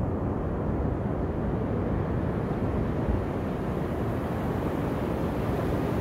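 Ocean surf breaking on a sandy beach: a steady low rush of waves, its hiss filling in a little after about two seconds.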